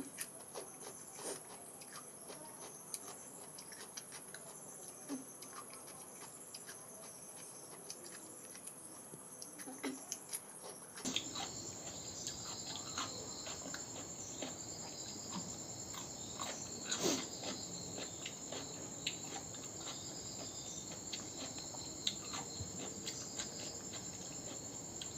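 Someone eating: quiet chewing with scattered small clicks and smacks of the mouth, over a steady high-pitched background whine that shifts about eleven seconds in.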